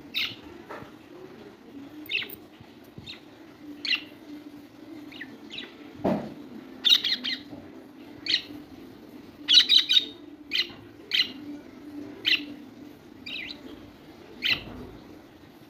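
Budgerigars chirping: short, sharp chirps every second or so, with quick runs of several chirps about seven and ten seconds in, over a low steady hum.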